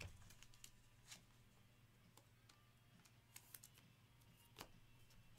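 Near silence: a few faint, sharp clicks of trading cards being handled and slid against each other, over a low steady hum.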